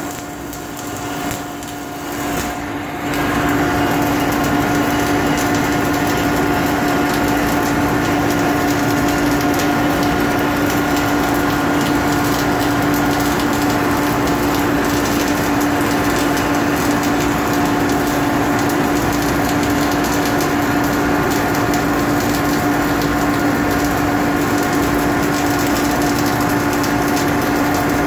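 MIG welding arc crackling steadily as the wire feeds into the weld, over a constant machine hum. It gets louder about three seconds in and then holds even.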